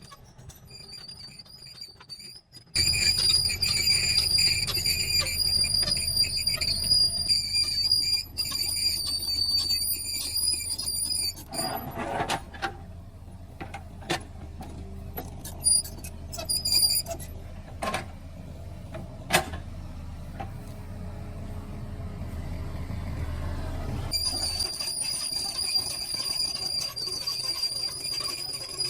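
Excavator working, its diesel engine running with a low rumble and a high-pitched metallic squeal. The squeal fades out for a stretch in the middle and comes back near the end. Several sharp knocks come around the middle, and the engine rumble drops off a few seconds before the end.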